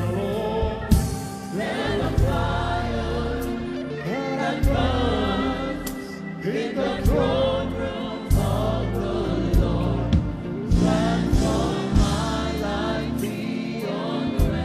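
Gospel worship song: a choir of voices singing over instrumental accompaniment with scattered percussion hits.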